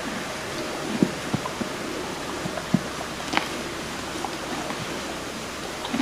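Horse grazing: a handful of short, sharp crunches as it tears and chews grass, over a steady rushing background noise.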